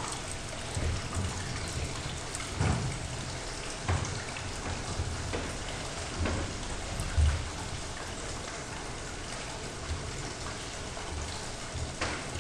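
Steady hiss of background noise with a few soft knocks scattered through it.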